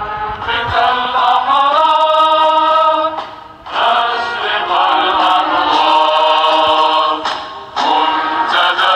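Sung vocal chant: voices hold long drawn-out phrases, breaking off twice.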